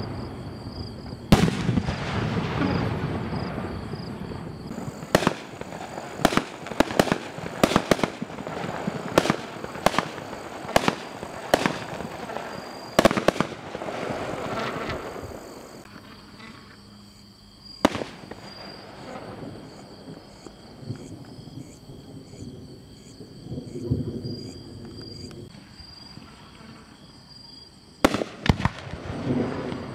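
2.5-inch aerial firework shells from a Dun Pai Prestige A1 assortment going off, heard as a series of sharp bangs, one after another through the first half. Then comes a quieter stretch with a single bang, and two more bangs close together near the end.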